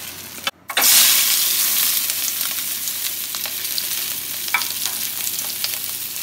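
Red and green bell pepper pieces frying in hot oil in a skillet: a steady sizzle that breaks off for a moment about half a second in, is loudest just after, then settles, with a few small pops.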